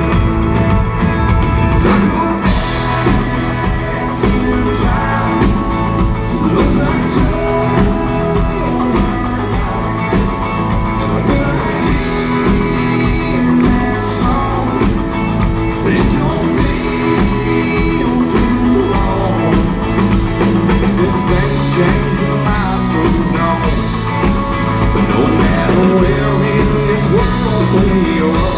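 Live country-rock band, with electric guitars, bass and drums, playing a song loudly with a man singing lead.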